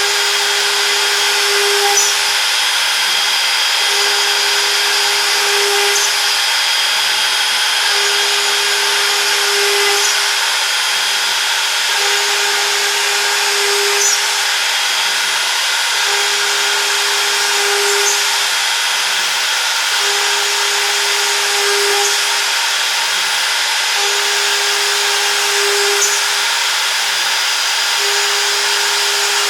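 CNC router spindle running at speed and cutting, a steady high-pitched whine. A lower tone in the sound breaks off briefly and a faint click comes about every two seconds, a regular repeating cycle of the machine's passes.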